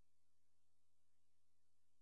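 Near silence: only a faint steady electrical hum and hiss.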